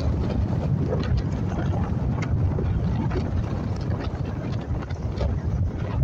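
Strong wind buffeting the microphone: a steady, heavy low rumble.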